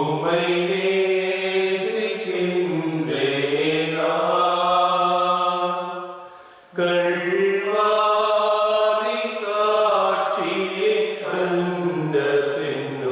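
A voice singing a slow devotional hymn in long, held, chant-like notes, in two phrases with a brief break about six and a half seconds in.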